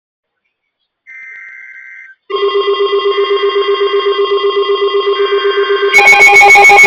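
A short burst of EAS/SAME header data, a warbling two-tone digital screech, then weather alert radio receivers going off: a rapidly pulsing alarm beep starts about two seconds in, and a second, louder and higher-pitched receiver alarm joins near the end. The receivers are alarming for an incoming severe thunderstorm warning.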